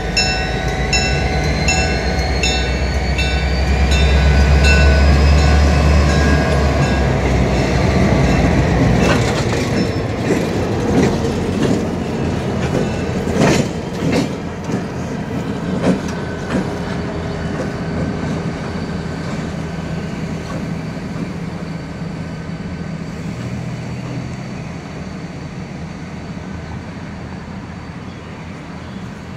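Diesel freight locomotives passing close by, the engines loudest in the first several seconds while a locomotive bell rings about twice a second. The wheels then clack over the crossing and rail joints for several seconds, and the rumble fades steadily as the train moves away.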